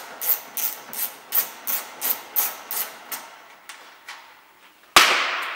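Socket ratchet undoing a 10 mm screw: quick rasping back-strokes of the ratchet, about three a second, that stop after about three seconds and leave a few light ticks. Then a single loud, sharp knock that rings on, about five seconds in.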